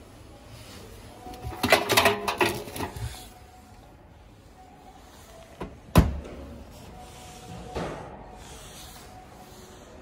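Front-loading washing machine door being handled: a cluster of rattling clicks about two seconds in, then a single sharp clack of the door and its latch about six seconds in, the loudest sound here, and a lighter click near eight seconds.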